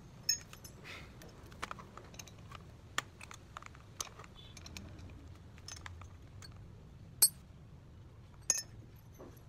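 Light metallic clicks and clinks as a drill bit is fitted into an electric drill's chuck and the chuck is turned by hand, with no motor running. The clicks come irregularly, the loudest about seven seconds in.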